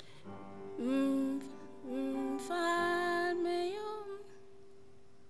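The opening notes of a Swahili hymn tune: a few long, held melody notes from about a second in until about four seconds in, over a steady held tone that continues throughout.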